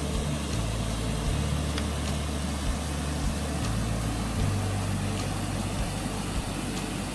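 Water pouring over a low dam spillway and splashing into a shallow pool, a steady rushing, with a music bass line underneath.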